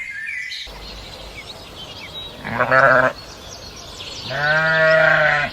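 A farm animal bleating twice over steady outdoor background noise: a short quavering bleat about two and a half seconds in, then a longer bleat a second and a half later.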